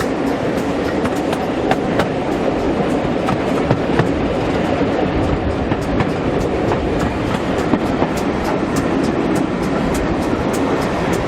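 Railway carriage running along the track: a steady rumble of wheels on rail, with a quick, regular run of clicks from the wheels passing over rail joints.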